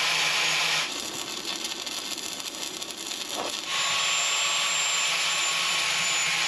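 Electric angle grinder with a paper sanding wheel running against the steel hydraulic tank of a John Deere 9500 combine, roughing up the metal around a crack to prepare it for welding. A steady high whine drops out about a second in and comes back just under four seconds in.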